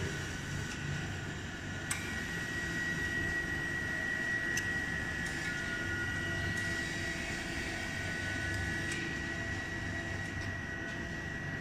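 Fried ice cream machine's refrigeration unit running steadily, a constant hum with a high whine over it, while a steel spatula scrapes and rolls frozen ice cream on the chilled pan, giving a few light clicks.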